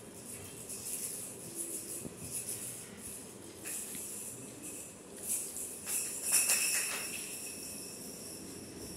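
Small bells jingling in short shakes, the loudest cluster about six to seven seconds in, ringing on briefly as it fades.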